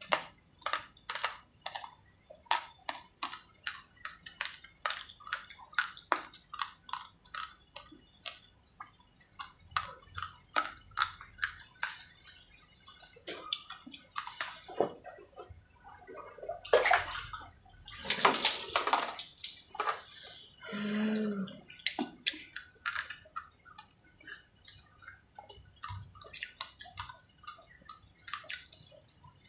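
Raw rice grains crunched in the mouth, in quick sharp clicks, with a few seconds of water poured and splashing over the body past the middle.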